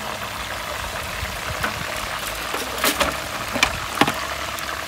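Metal tongs clicking against the pan and an aluminium foil tray as cooked chicken is lifted out, with a few sharp clicks about three to four seconds in. Sauce keeps bubbling steadily in the pan underneath.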